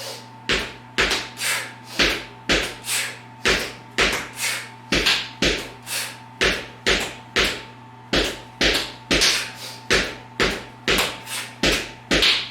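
Medicine ball dribbled against the floor from side to side at a quick, even pace, about two a second. Each thump comes with a short, forceful breath out from the person doing the exercise.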